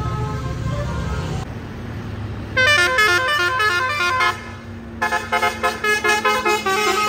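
A bus's 'telolet' basuri musical air horn plays a quick tune of stepped multi-note blasts, starting about two and a half seconds in, then again from about five seconds on. Before the first tune, a low engine rumble drops away.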